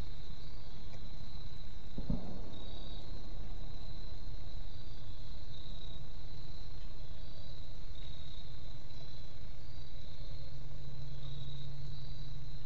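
A steady, high-pitched chorus of insects trilling without a break, over a low steady rumble, with a single soft knock about two seconds in.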